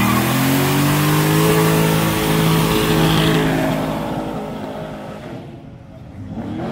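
A car engine revs up and holds steady high revs under a broad hiss, then fades away over the last couple of seconds as the car pulls off.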